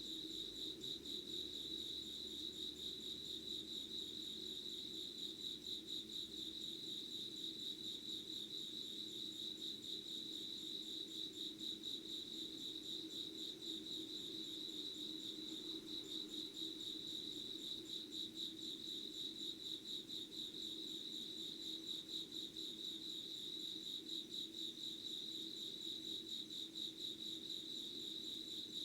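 Crickets chirping in a steady, rapidly pulsing high-pitched trill that carries on without a break.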